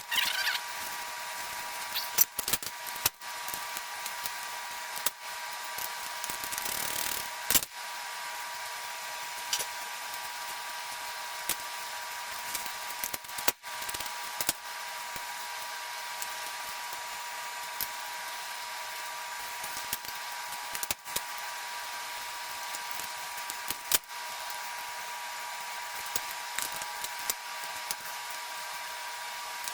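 Hand tools working on a chainsaw-based engine as its cylinder is taken off: scattered sharp clicks and knocks at irregular intervals over a steady hiss.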